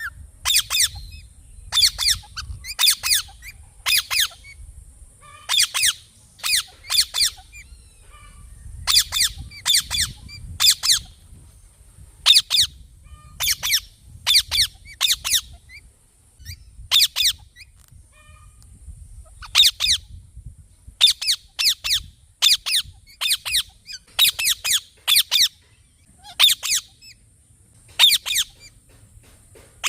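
Parrot giving short, shrill screeching calls over and over, often two in quick succession, with pauses of a second or two between groups.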